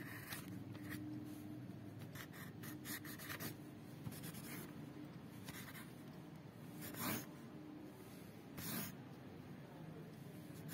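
Scratchy rubbing strokes on paper, short and irregular, with two louder ones about seven and nearly nine seconds in, over a faint steady hum.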